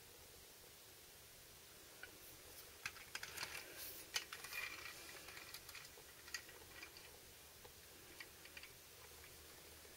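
Light clicks and rattles of a toy dump truck being handled: its tipping bed lowered and the truck pushed across a hard floor. The clicks come in an irregular cluster from about two seconds in to about seven seconds in, with near silence on either side.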